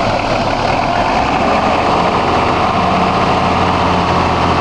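Off-road 4x4 engine idling close by, a steady low hum with a deeper steady tone settling in about a second in.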